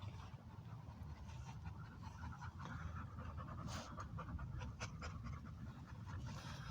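American pit bull terrier panting steadily to cool itself in hot, muggy weather, with a few light clicks.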